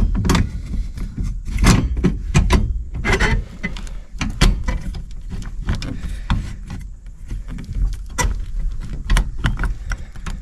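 Irregular clicks and knocks of plastic and metal parts as a turn signal switch is pushed and turned to seat it on a 1968 Pontiac LeMans steering column, over a low rumble of handling noise.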